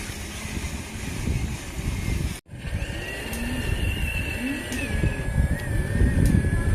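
Small electric motors of radio-controlled construction vehicles whining steadily at a high pitch, over a low rumbling outdoor noise. The sound drops out abruptly about two and a half seconds in, and the whine resumes with a wavering pitch.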